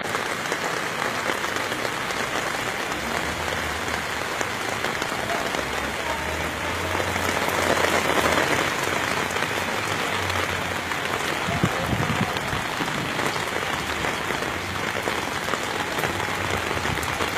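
Heavy rain pouring down steadily, swelling louder about eight seconds in.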